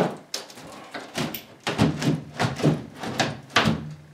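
A wooden lower kitchen cabinet being lifted and pulled free from the wall, giving a run of irregular knocks, thumps and scrapes as it bumps against the wall and floor.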